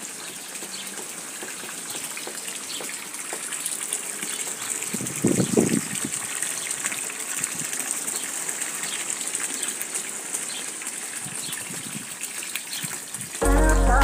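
Water from a hose pouring steadily into a garden fish pond, splashing on the surface, with a brief low thump about five seconds in.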